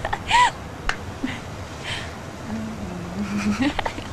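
A woman's brief laugh or breathy exclamation about half a second in, then a low hummed sound held for about a second near the end, ending in a slight upward lift.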